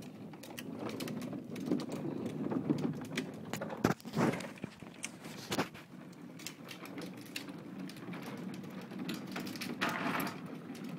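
Hard plastic wheels of a toddler's ride-on toy truck rolling and rattling over a concrete driveway, a steady rumble full of small clicks, with a louder knock about four seconds in.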